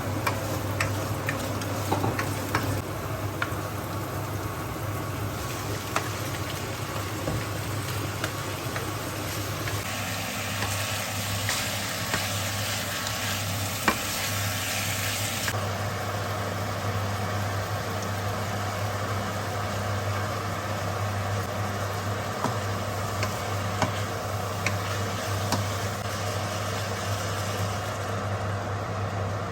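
Chicken Bicol Express frying and sizzling in a pan while it is stirred, the utensil clicking against the pan now and then. A steady low hum runs underneath.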